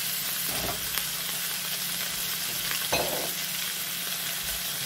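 Potato and carrot chunks sizzling in oil in an aluminium wok, with a steady frying hiss. A metal slotted spatula knocks and scrapes against the pan a few times as the vegetables are stirred.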